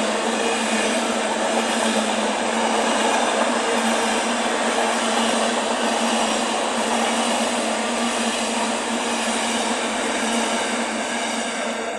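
Container freight train passing at speed: a steady rushing noise of the wagons' wheels rolling on the rails, with a low steady hum under it, just starting to fade at the very end as the last wagons go by.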